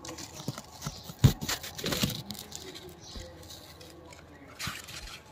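Irregular rustling, soft knocks and scrapes as a phone is handled close among fig leaves and branches, with one louder thump a little over a second in.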